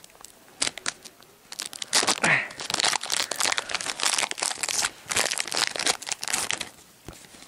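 Foil Yu-Gi-Oh trading-card booster pack wrapper crinkling irregularly as it is handled and opened by hand.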